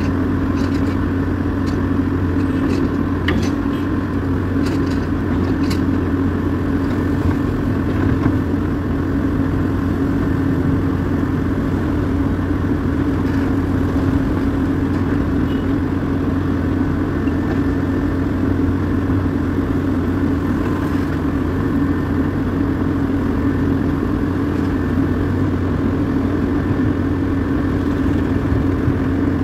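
Diesel engine of a crawler-mounted rotary piling rig running steadily as its kelly bar is lowered into a bored pile hole. A few light clicks come in the first several seconds.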